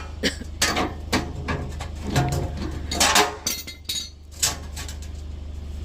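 Scrap metal being taken apart by hand: irregular metallic clinks and knocks, a dozen or so, mostly in the first four and a half seconds.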